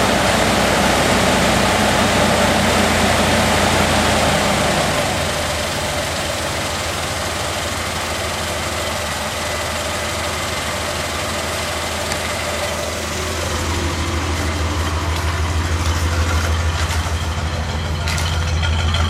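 1981 Cadillac 368 V8 idling steadily while it warms up shortly after a cold start. A steady rushing noise on top eases about five seconds in, and the low engine hum grows stronger again near the end.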